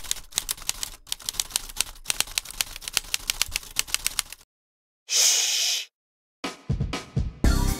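Typewriter sound effect: rapid key clicks for about four and a half seconds, then a short burst of hiss a little past halfway. Music with a strong bass line starts near the end.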